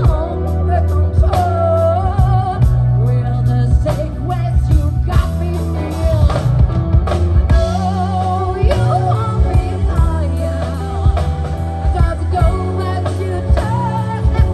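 Song with a sung vocal line over bass, guitar and a drum beat, in a rock style.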